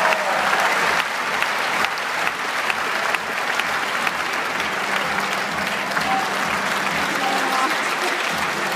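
Audience applauding, steady clapping from a large crowd.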